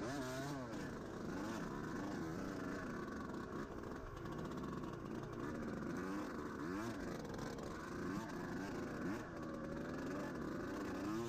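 Dirt bike engine under load, revving up and down in short blips every second or so as the throttle is worked.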